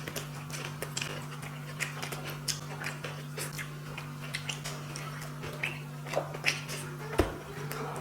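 People eating rice and tilapia curry: scattered wet chewing, lip smacks and small clicks of food and fingers over a steady low hum. A single louder knock about seven seconds in.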